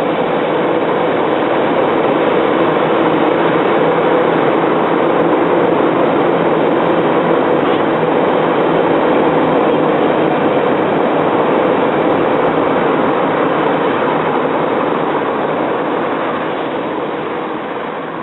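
Diesel engine of an excavator working on a barge, a steady dense mechanical drone, fading out near the end.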